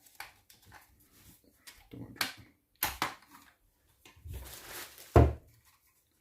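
A few sharp plastic clicks and knocks and a short rustle as cordless drill batteries and their charger are handled; the loudest knock comes near the end.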